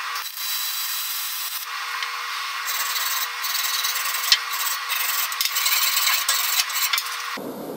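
A hand wire brush with a wooden handle scrubbed back and forth over freshly MIG-welded aluminum, cleaning the bead: a scratchy rasping that gets louder and more uneven after about two seconds, with one sharp click midway.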